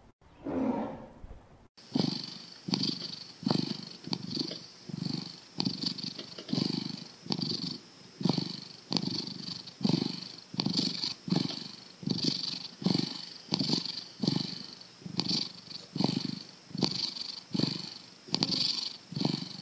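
A tom cat (male domestic cat) purring steadily, the purr swelling with each breath about every three-quarters of a second. Before it, in the first couple of seconds, the end of a tiger's call is heard.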